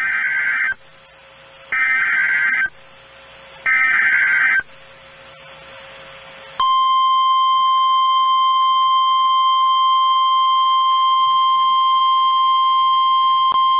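Emergency Alert System activation on NOAA Weather Radio. First come three one-second bursts of SAME digital header tones, about a second apart. A couple of seconds later the steady 1050 Hz warning alarm tone starts and holds. It signals the start of a severe thunderstorm warning.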